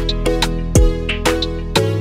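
Background music with a steady beat over sustained tones.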